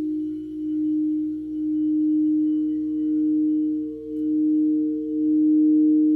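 Singing bowl sounding a sustained low tone with a fainter higher overtone, swelling and dipping in slow waves about once a second.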